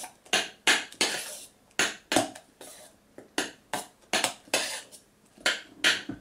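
A metal kitchen utensil scraping against the inside of a stainless steel pot in about a dozen short, irregular strokes, while lemon zest is worked into a creamy tuna sauce.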